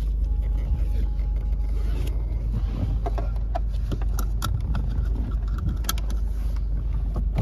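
A 1997 Mercedes-Benz SLK 230's supercharged four-cylinder engine running at low revs while driving slowly, heard from inside the cabin as a steady low drone with road noise. A few light clicks come through in the middle.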